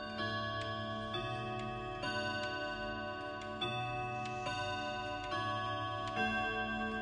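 Grandfather clock's hammers striking its chime rods, playing a slow melody of ringing notes about one a second that overlap and sustain, with the clock's movement ticking steadily underneath.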